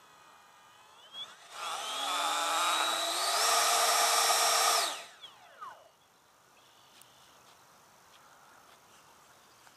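Electric ducted fans of a Freewing F-15 model jet run up on the ground: a whine that starts about a second and a half in, climbs in pitch, holds at full throttle for about a second and a half, then is cut and spools down about five seconds in.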